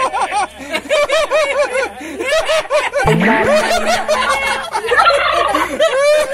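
Domestic turkey calling over and over, short rising-and-falling calls in quick succession.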